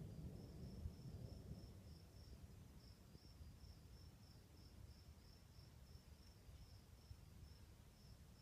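A cricket chirping steadily at one high pitch, about three chirps a second. Under it, the low tail of a thunder rumble fades out within the first couple of seconds.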